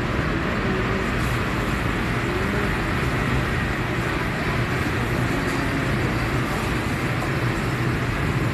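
Steady roar of commercial kitchen ventilation over a wok range, an even rushing noise with a constant low hum underneath.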